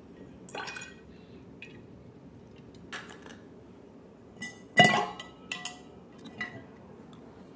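Milk poured briefly from a carton into an insulated tumbler, then an ice cube dropped into the tumbler with a sharp clink just before five seconds in, followed by a few lighter clinks and knocks from the plastic ice tray.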